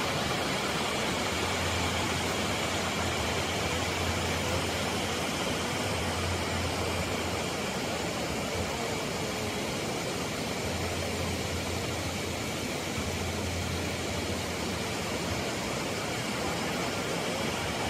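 Steady rushing roar of several waterfalls pouring into a pool, with a low rumble that comes and goes.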